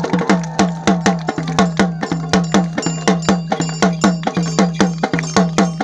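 Fast traditional drumming, about five even strokes a second, each stroke dropping in pitch, over a steady low drone.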